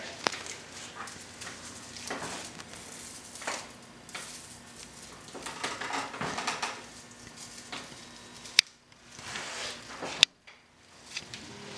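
Broomcorn stalks rustling and scratching as twine is wrapped and pulled tight around the bundle by hand, in uneven swells, with two sharp clicks late on.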